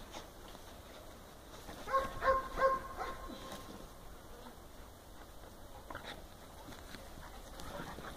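A dog whining: three short, high whines in quick succession about two seconds in, with a few faint scuffles and clicks of dogs play-wrestling later on.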